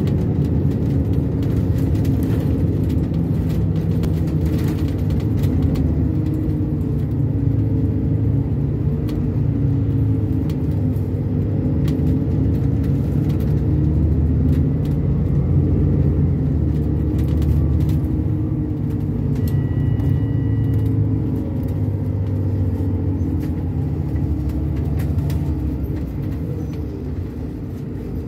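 Bus engine and road rumble heard from inside the passenger cabin while under way, the engine's pitch drifting up and down as the bus changes speed.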